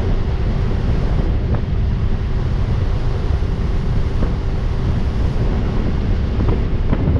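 Wind buffeting the microphone and water rushing past as a fishing boat's outboard motor runs steadily at cruising speed, a faint even engine note under the rumble.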